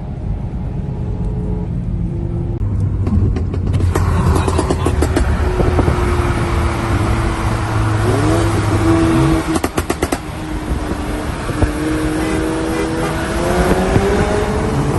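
A car engine running and accelerating, its pitch rising and falling several times, with a dense rushing noise that swells from about four seconds in.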